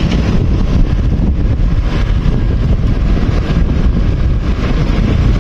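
Wind buffeting the microphone of a moving vehicle as a steady, loud rumble, with the vehicle's running engine and tyre noise on the rough dirt road mixed in.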